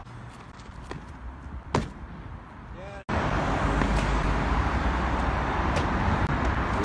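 A single sharp impact about two seconds in, the thud of a parkour landing. After an abrupt cut about three seconds in, a loud steady rushing outdoor noise with a few faint clicks.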